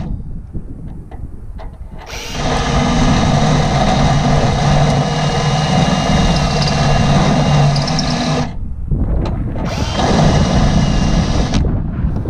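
Handheld power tool running steadily at one pitch in two runs: a long one of about six seconds starting about two seconds in, then a shorter one of under two seconds near the end, with a few light clicks of handling in between.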